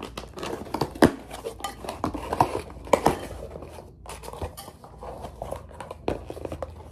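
A sunglasses delivery being unpacked by hand: irregular clicks, taps and rustling of packaging, with a few sharper knocks.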